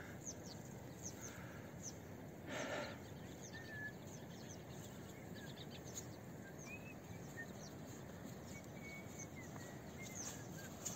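Quiet mountain-valley ambience: a faint steady hiss with scattered small bird chirps and high ticks, and a brief breathy whoosh about two and a half seconds in.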